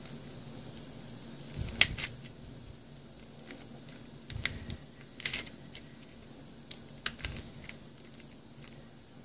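Plastic two-layer Star Super Square twisty puzzle being turned by hand: irregular clicks and short clatters as its layers turn and pieces snap into place. The loudest is a sharp click about two seconds in, with more bursts of clicking in the middle and near the end.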